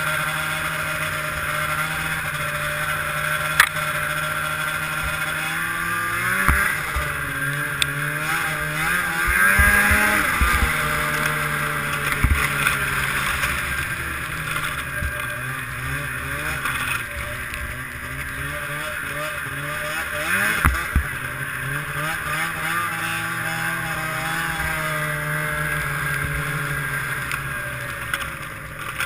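Ski-Doo MXZ 670 snowmobile's two-stroke twin running through an aftermarket Walker silencer while riding, revving up and easing off several times. A few sharp knocks stand out over the engine.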